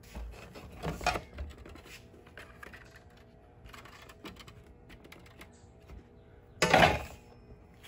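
Handling noise: light clicks and taps as a hard plastic RC truck body with a welded steel-rod cage is turned over in the hand. There is a louder scrape or rub about a second in and a longer, louder one near the end.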